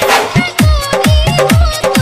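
Loud dance song with a fast, heavy electronic drum beat, each kick dropping sharply in pitch, under a wavering melody line.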